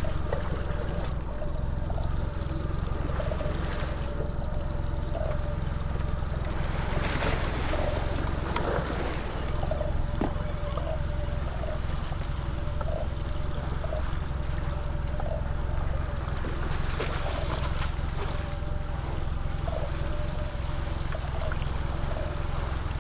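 Wind buffeting the microphone and water lapping against a small boat's hull as a steady low rumble, with a faint steady hum underneath.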